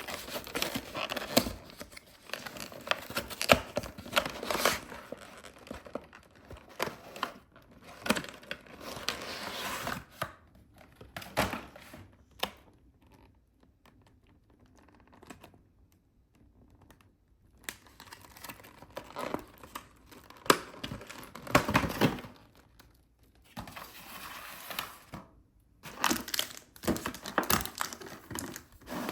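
Plastic shrink wrap crinkling and tearing on a trading-card collection box being opened by hand, in irregular bursts of rustling and crackling. There is a pause of a few seconds in the middle.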